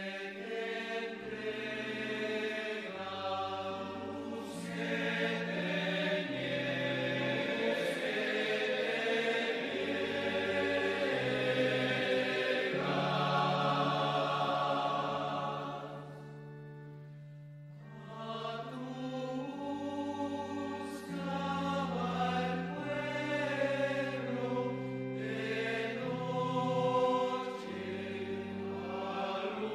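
Choir singing a slow hymn in long held notes over low sustained accompaniment, music for the communion time of the Mass. The music thins out briefly about halfway through, then the singing resumes.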